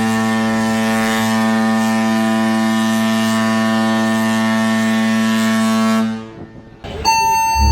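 Cruise ship's horn sounding one long, steady blast of about six seconds, a deep tone with many overtones, as a muster signal. After a brief pause near the end, a different, higher-sounding horn tone starts.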